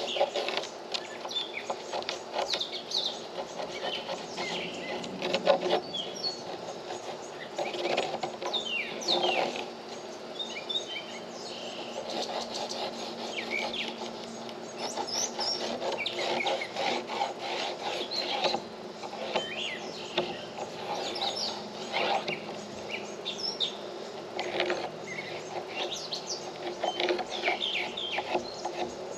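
Pencil scratching across plywood in short, quick strokes while tracing an outline, with birds chirping throughout.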